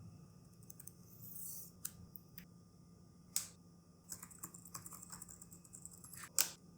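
Typing on the Zebronics ZEB K5002MW low-profile scissor-switch wireless keyboard: irregular light key clicks, with a cluster of quick presses in the middle and two louder taps, one about halfway through and one near the end.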